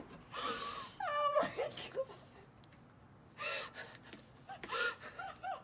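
High-pitched whining, whimpering cries with breathy gasps between them; one cry glides down in pitch about a second in, and a run of short rising-and-falling cries comes near the end.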